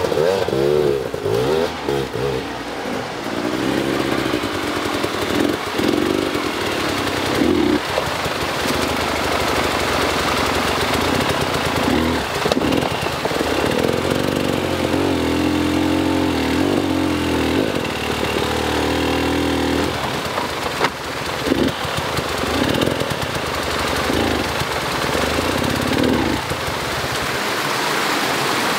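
Dirt bike engine revving up and down unevenly under load as the bike is worked up over rocks, over the rush of running creek water. The engine drops away near the end, leaving the water.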